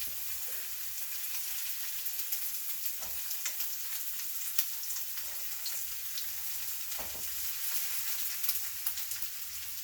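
Stir fry sizzling in a hot pan: a steady hiss with small crackles and pops. A utensil knocks against the pan twice, about three and seven seconds in.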